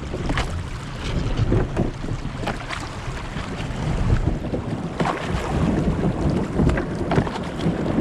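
Kayak paddle strokes splashing and dripping in river water at an irregular pace, with wind buffeting the microphone.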